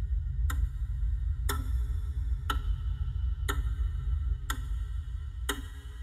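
Clock ticking sound effect, one sharp, ringing tick each second, over a steady deep low drone.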